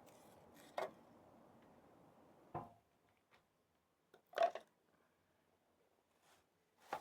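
Four light, sharp clicks and knocks, the third the loudest, over a faint steady hiss that stops about two and a half seconds in.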